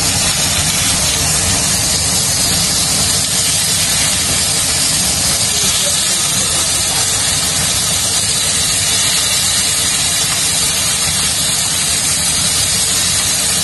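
Beef steaks sizzling in a hot grill pan as they sear, a steady loud hiss.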